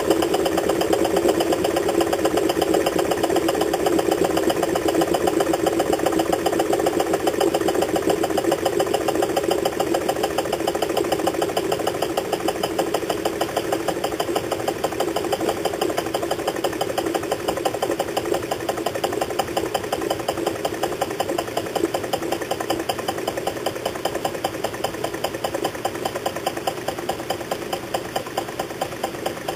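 Nexus Stirling engine with a foam displacer running steadily: a fast, even mechanical clatter from its crank and linkage, getting gradually a little quieter.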